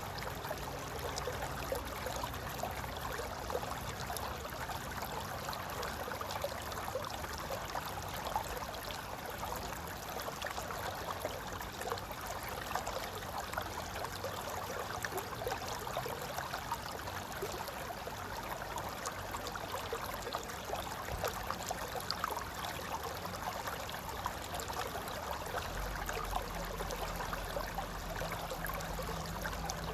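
Mountain river flowing and gurgling over rocks: a steady rush of water with constant small splashes.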